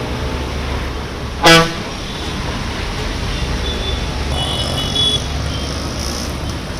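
A vehicle horn gives one short, loud beep about a second and a half in, over a steady low rumble of motorbike engines and water churning as two-wheelers ride through knee-deep floodwater.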